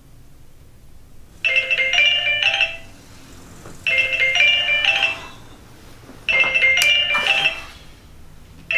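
Smartphone ringtone: a short melodic chime phrase repeating about every two and a half seconds, three times, with a fourth starting near the end, signalling an incoming call.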